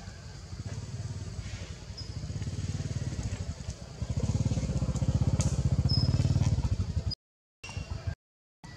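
A small engine running at low revs, a fast even throb that grows louder over several seconds. The sound cuts out abruptly twice near the end.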